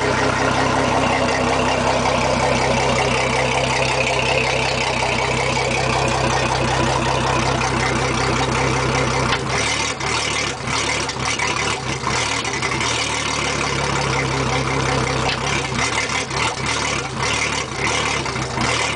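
Mercury Verado 250 hp four-stroke outboard engine idling steadily; about halfway through the deepest part of its sound drops away and it turns more uneven.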